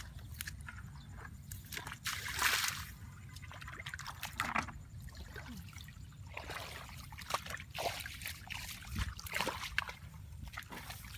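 Water sloshing and splashing in an uneven run of splashes and trickles, the loudest about two and a half seconds in.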